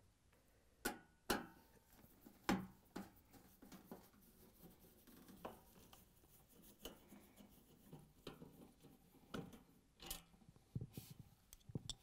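Faint clicks and light scraping of a Phillips screwdriver turning out screws from a refrigerator's sheet-metal rear cover panel, with sharper clicks about a second in and again near the end.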